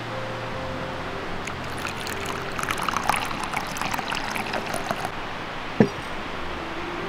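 Tea poured from a glass teapot into a ceramic bowl: a splashing trickle for about three and a half seconds, stopping near five seconds in. Shortly after, a single dull thud as the teapot is set down on the table.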